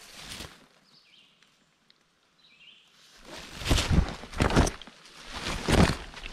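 Footsteps crunching through leaf litter on a forest trail, irregular and loud from about three seconds in. Before that is a near-quiet stretch with a couple of faint bird chirps.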